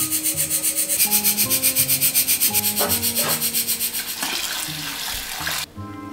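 Pressure cooker whistling: steam hisses out past the lifting weight in a loud, rapidly pulsing stream, about six or seven pulses a second, which cuts off abruptly near the end. Each such whistle marks the cooker at full pressure.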